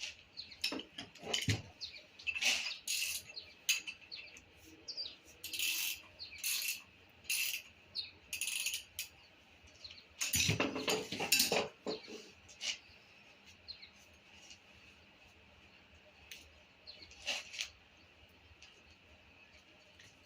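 Irregular metallic clinks and clatter of hand tools and engine parts being handled during an engine teardown, busiest about ten to twelve seconds in, over a faint steady high hum.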